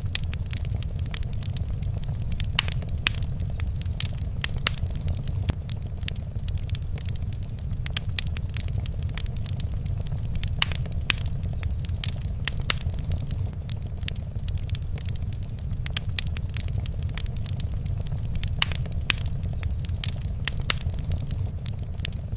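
Wood fire crackling in a fireplace: frequent irregular pops and snaps, some much louder than others, over a steady low rumble.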